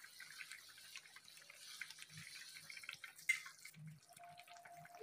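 Pork and broth simmering in a wide metal pan: faint bubbling and small popping, with one sharp tick a little over three seconds in.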